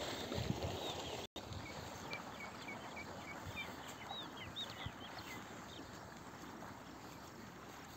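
Birds chirping in a quick series of short rising and falling notes from just after the start until about halfway through, over a steady rushing background noise. The sound cuts out completely for a split second about a second in.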